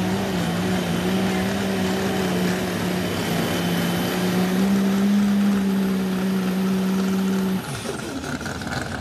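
Pulling vehicle's engine running hard at steady, high revs during a hook down the track, then shutting off about seven and a half seconds in, its pitch falling away as it winds down.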